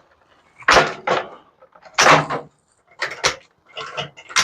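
A few separate knocks and scrapes of a microwave's metal casing and parts being handled and pulled at while it is stripped for scrap wire.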